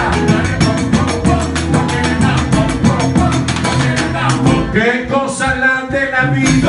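Live salsa band playing: a man sings over hand-drum percussion and bass. The bass drops out briefly about five seconds in.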